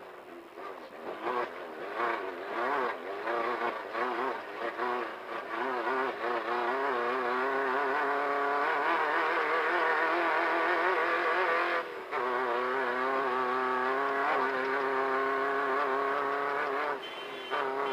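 Volkswagen Beetle-based desert race car's engine under hard running. The revs rise and fall rapidly at first, then hold steady and high, with a brief drop about twelve seconds in before picking straight back up.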